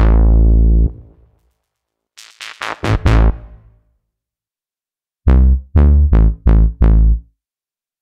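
reFX Nexus 4 synth bass presets sounding preset preview notes. A held bass note stops about a second in, a quieter run of short notes follows from about two seconds, and from about five seconds a phrase of about five short, loud bass notes plays.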